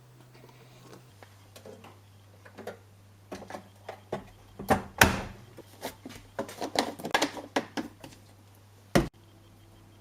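Knocks, clicks and rustling from handling a washing machine and laundry during loading, with a sharp loud knock about five seconds in and another near the end.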